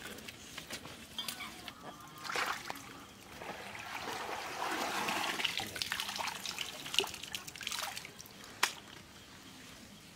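Shallow muddy water splashing and trickling as hands and a bamboo frame are worked in it, busiest in the middle, with a few sharp clicks near the end.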